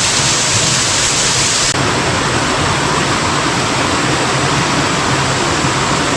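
Mountain stream rushing over rocks, a loud steady rush of water. About two seconds in the sound shifts abruptly and its hiss becomes a little duller.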